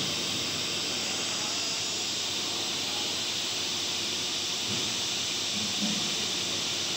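Felder sliding-table panel saw running with a steady rushing hiss, as the edges of a wooden printing plate are trimmed square.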